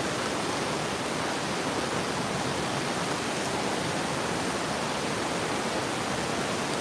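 Steady rush of river water flowing over shallows, the river still running high after a heavy flood.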